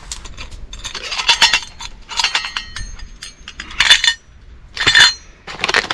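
Metal camping pot and its lid clinking and knocking as the pot is handled with a cloth, about five short metallic clinks with a brief ring after each.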